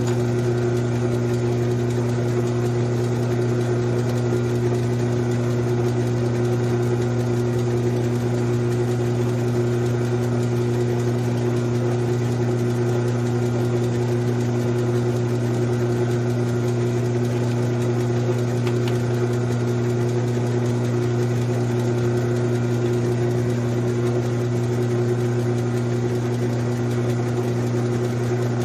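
Grizzly G9972Z metal lathe running steadily with its chuck spinning: a constant, even motor and drive hum.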